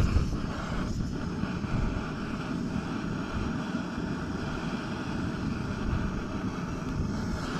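Wind rumbling on the microphone: a steady, low, gusting noise.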